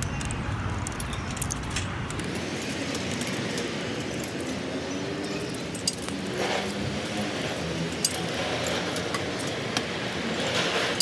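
Coins clinking and clicking as they are dropped one at a time into the coin slot of a ticket vending machine, over a steady hum of background noise.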